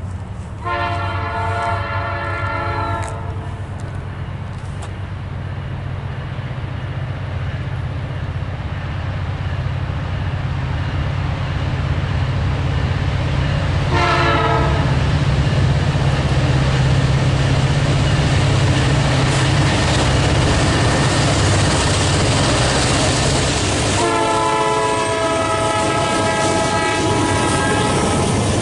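Locomotive air horn sounding three blasts, a long one, a short one, and a long one starting near the end and still going, as the train approaches. Under the horn is a low engine rumble that grows louder through the first half, with the clatter of train wheels on the rails.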